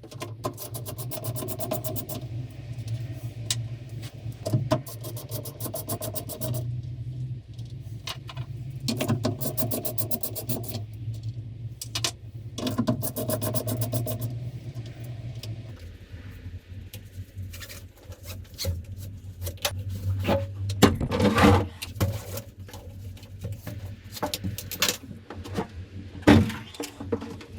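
Electric power sander running against a boat hull: a steady motor hum with rubbing and scraping and many sharp clicks over it. The hum drops a little in pitch about sixteen seconds in.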